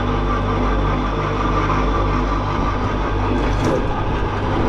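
A winch motor running with a steady low hum as it hauls a box up on a line, cutting out near the end.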